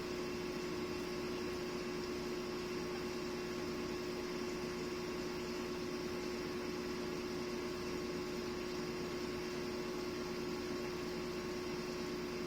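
Steady room hum: one constant drone over an even hiss, without any change in pitch or level.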